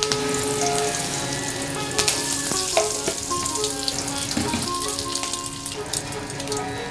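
Food sizzling in hot oil in a cooking pan, a steady frying hiss, over background music.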